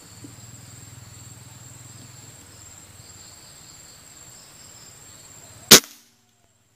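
A single sharp rifle shot about five and a half seconds in, over a steady high drone of forest insects; the sound cuts off suddenly just after the shot.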